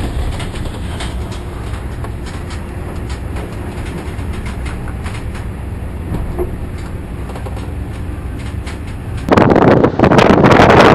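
Steady low rumble aboard a ship labouring in heavy storm seas, with faint rattles. About nine seconds in it gives way abruptly to loud wind buffeting the microphone on an open deck.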